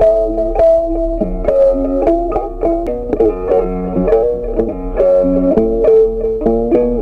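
Background music: a melody on a plucked-string instrument, note after note at an even pace.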